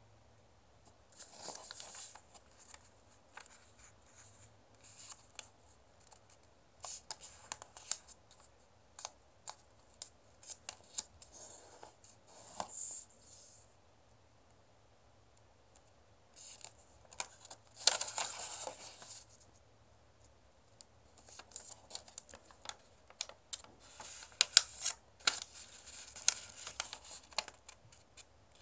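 A square of origami paper being folded by hand on a table: rustling, sliding and sharp creasing strokes in irregular bursts, loudest about eighteen seconds in and again in a busy run near the end.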